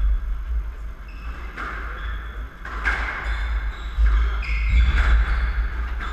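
Squash rally: sharp strikes of the ball off racket and walls, about once a second from around three seconds in, with sneakers squeaking on the wooden court floor.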